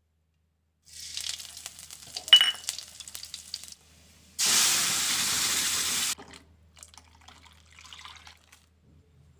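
Garlic and seeds crackling and sizzling in hot oil in a kadai, with a sharp metal clink partway through. Then a loud, steady sizzling hiss lasts about two seconds and cuts off suddenly, followed by fainter sounds as the green rasam puree is poured into the pan.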